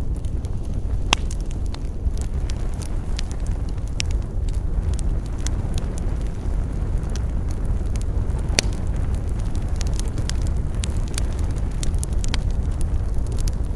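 Wood fire crackling, with irregular sharp pops and snaps over a steady low rumble; one pop stands out about a second in and another, the loudest, past the middle.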